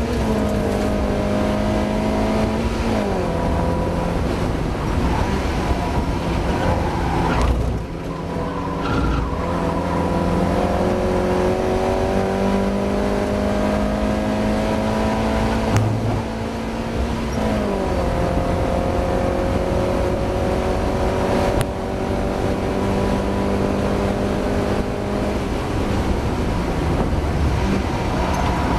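Mazda MX-5 race car's four-cylinder engine running hard under load, its note climbing slowly through the revs and dropping sharply at gear changes or lifts, a few times over the stretch, with a short lift about eight seconds in. The driver reports the car is struggling with a misfire.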